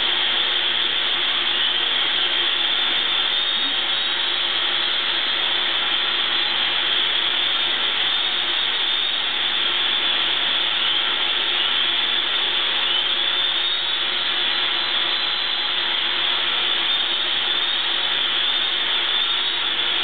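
Vacuum cleaner running steadily, its powered brush head being drawn over a cat's fur.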